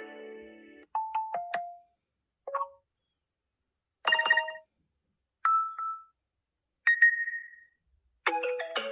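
Samsung Galaxy S23 ringtone playing: a string of short electronic chimes, each under a second, with gaps of silence between them.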